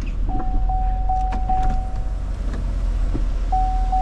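A car's warning chime dinging in the cabin: one clear pitch struck four times at an even pace of about two and a half dings a second, fading out, then starting again near the end. A steady low rumble runs underneath.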